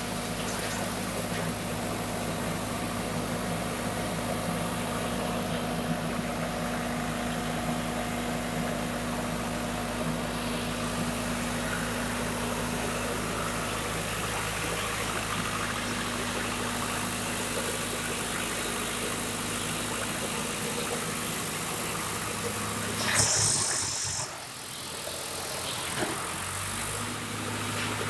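Diesel engine of a wood chipper running steadily with a constant low drone. About 23 seconds in, a short louder burst with a high hiss breaks in, and the drone weakens for a few seconds before it returns.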